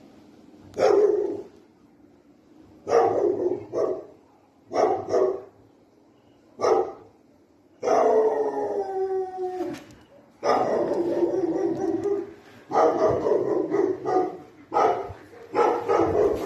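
A dog barking in short bouts, with a long howl about eight seconds in that slides down in pitch, then more barks and howls close together toward the end.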